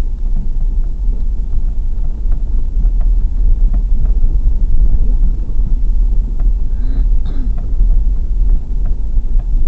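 Inside a car driving slowly over a rough, rutted grass field: a steady low rumble from the engine and tyres, with frequent small knocks and rattles as the body jolts over the bumps.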